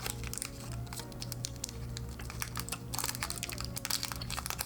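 Irregular light crinkling clicks of a candy wrapper being handled, over soft background music.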